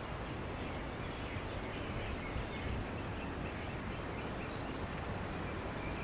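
Steady outdoor background hiss, with one faint, short high bird note about four seconds in.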